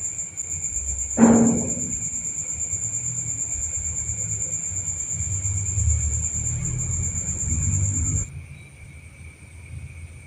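Crickets trilling steadily, with one loud thump about a second in that rings on briefly with a low tone. A low rumble follows, and the cricket sound cuts off suddenly near the end.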